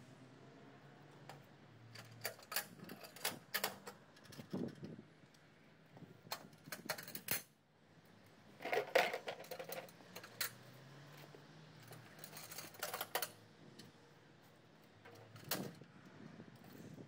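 Metal clicks, knocks and clanks from the folding steel leg stand of a Cedima CTS 56 stone-cutting table saw as its legs are swung out and locked into place. One louder, ringing clank comes about nine seconds in. A faint steady low hum runs underneath.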